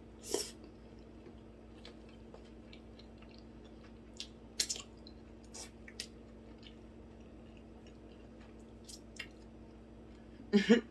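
Close-miked chewing of shrimp fried rice: soft, wet mouth clicks and smacks coming a few at a time, with a louder cluster near the end.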